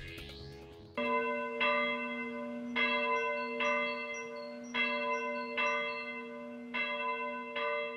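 A single church bell tolling, struck at a steady pace of roughly one stroke a second from about a second in, each stroke ringing on into the next.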